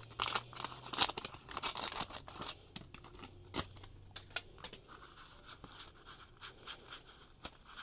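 Trading cards and their wax-paper packs being handled: a run of quick crinkles and scratchy clicks as cards are slid and flipped through one by one, busiest in the first couple of seconds and lighter after.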